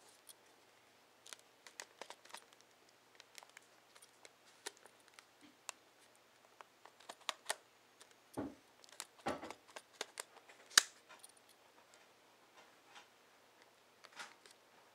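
Scattered plastic clicks and handling knocks from a Nikon SB-600 Speedlight flash being turned in the hands, its head tilted and rotated. There are two duller knocks a little past the middle and one sharp, loud click just after them.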